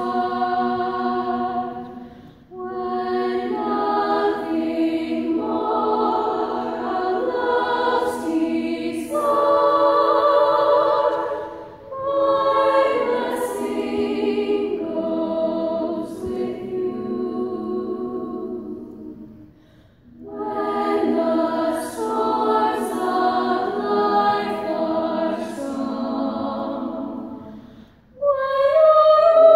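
Girls' choir singing unaccompanied, several voices holding long notes together in phrases, with the sound dropping away for a breath between phrases about every eight seconds.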